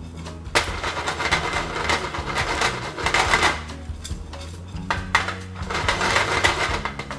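Wooden chopsticks stirring crushed cereal being stir-fried in a nonstick frying pan, scraping against the pan in several bursts.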